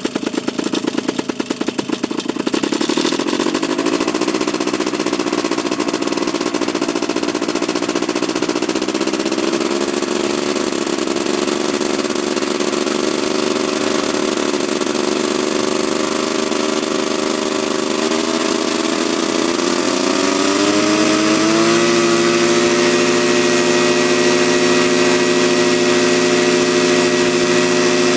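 Paramotor engine and propeller running at low throttle while warming up. The engine speed creeps up, then rises to a higher steady speed about twenty seconds in.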